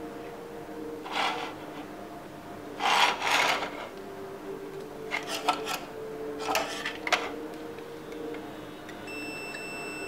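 Handling noise from a TV main circuit board being lifted and turned over on a workbench: several short rubbing and scraping bursts with a few clicks, the loudest about three seconds in. A faint high steady tone comes in near the end.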